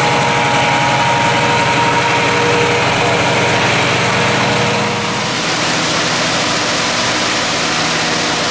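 Diesel engine of a front-discharge concrete mixer truck running steadily. About five seconds in, a steady rushing noise joins it.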